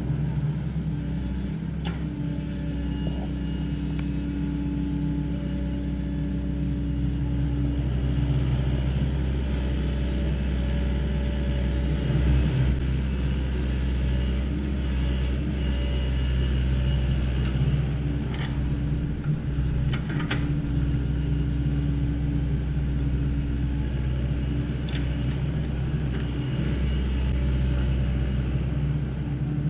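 Sany SY75 mini excavator's diesel engine running steadily while the machine works, with a few brief sharp knocks along the way.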